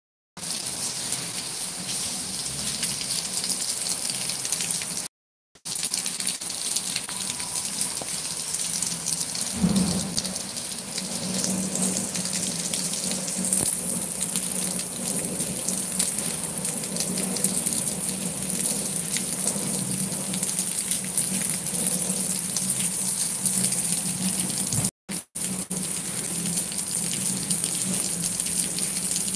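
Heavy rain falling steadily, a continuous hiss of rain on roofs and concrete. The sound cuts out briefly twice.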